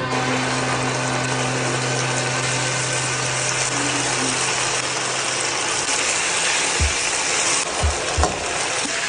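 Food sizzling steadily in a hot frying pan, with a few short knocks in the last few seconds.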